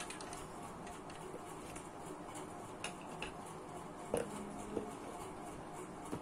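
Light knocks and scrapes of cardboard shoebox lids being lifted and set back down, the loudest about four seconds in, over a steady room background.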